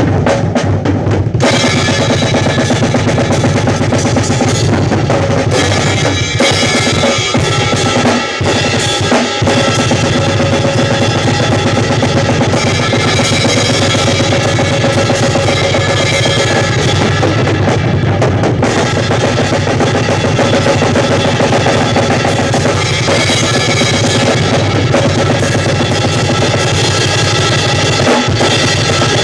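A drum kit played continuously, bass drum and snare, loud and dense throughout.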